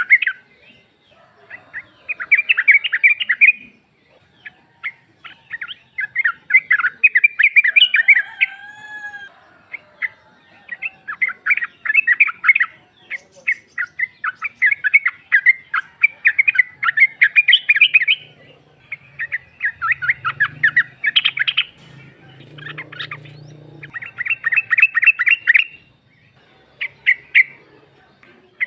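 Female yellow-vented bulbul (trucuk) calling: a string of loud, bubbly chattering phrases, each a second or two of rapid notes, repeated after short pauses.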